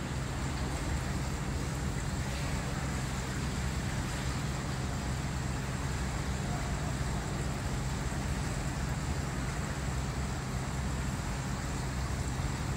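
Steady low hum with an even hiss: the constant background noise of an indoor swimming pool hall.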